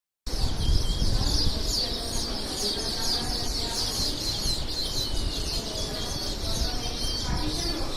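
Many small birds chirping at once in a dense, continuous chorus of quick, high chirps, over a low rumble.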